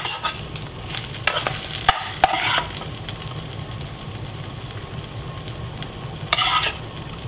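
Small fish frying in oil in a frying pan, with a steady sizzle. A spoon stirs and scrapes through them in short bursts, several in the first few seconds and one more near the end.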